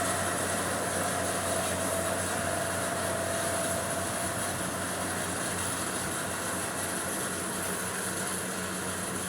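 Rice harvester's engine running steadily, with a higher whine that fades out about four seconds in.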